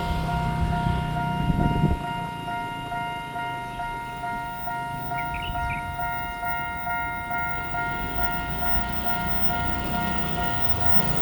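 Taiwan Railway level-crossing warning alarm sounding its unusual electronic tone: several steady pitches together, pulsing in a regular rhythm, to warn that a train is approaching. A low rumble underneath stops about two seconds in, and there is a brief high chirp about five seconds in.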